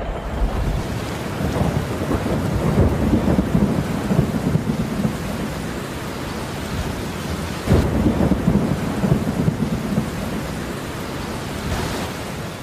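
Thunderstorm: steady heavy rain with rolling thunder, a rumble swelling in a couple of seconds in and another breaking out about eight seconds in.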